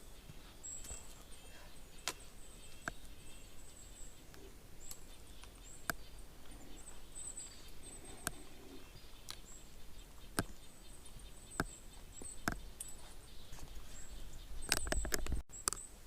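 Footsteps of a hiker on a forest trail at an easy walking pace, about one step a second, while small birds chirp faintly and high in the background. A brief louder rustle comes near the end.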